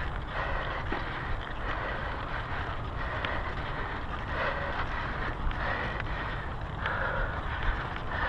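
Mountain bike ridden along a dirt trail, heard from a camera on the handlebars: a steady rumble of wind on the microphone and tyres rolling on dirt, with scattered clicks and rattles from the bike.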